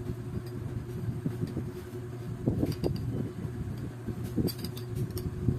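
A small electric motor, most likely a turbo broiler's fan, humming steadily, with a few knocks and sharp clicks about halfway through and again near the end.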